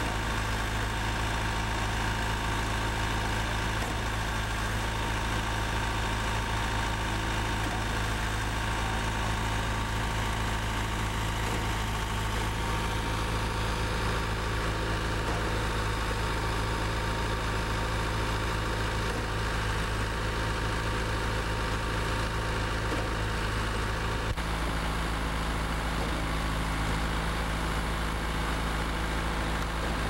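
Engine of a REED A30HP trailer-mounted concrete pump running at a steady speed, with an abrupt change in its tone about two-thirds of the way through.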